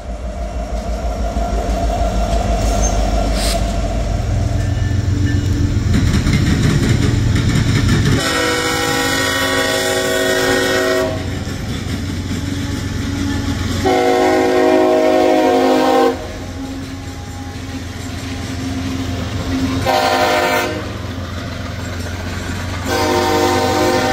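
Diesel freight locomotives rumbling past at a grade crossing for the first third, then a locomotive horn sounding the grade-crossing signal: two long blasts, a short one and a final long one, over the steady rumble of the freight train.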